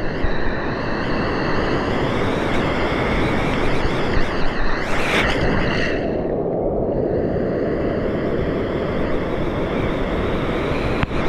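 Sea surf washing around rocks, a steady rush of water mixed with wind on the microphone; a wave surges and breaks about five seconds in.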